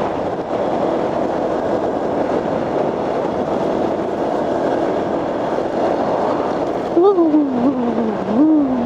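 Motorcycle on the move, heard on the rider's microphone: a steady rush of wind and engine noise. About seven seconds in, a pitched tone slides down, then rises and falls once more near the end.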